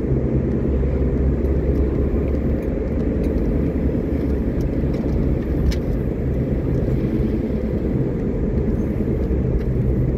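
A car driving, heard from inside the cabin: a steady low drone of engine and tyres on wet pavement. One light click comes a little past halfway.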